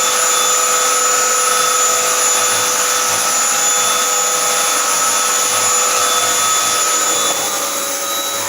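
Black+Decker Power Series Pro cordless stick vacuum cleaner running steadily with a high-pitched motor whine over the rush of air, getting a little quieter about seven seconds in.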